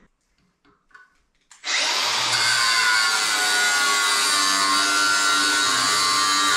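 Angle grinder with a cutting disc slicing into a steel wedge, cutting it apart into blades. After a moment of near silence it starts suddenly about a second and a half in and then runs steadily under load.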